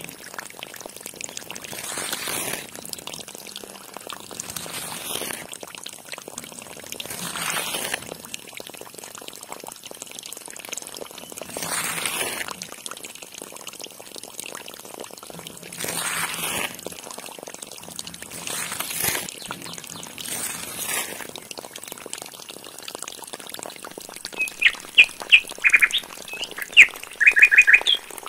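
Water pouring and splashing from a miniature pump's outlet pipe into a shallow channel, swelling every few seconds. In the last few seconds a bird chirps loudly in quick runs of short notes.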